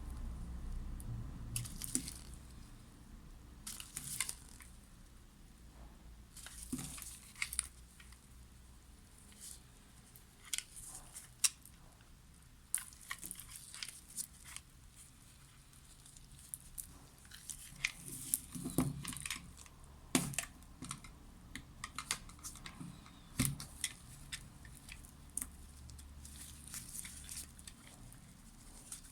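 Knife cutting through bar soap: irregular crisp scraping and crunching strokes, with a few heavier, duller cuts.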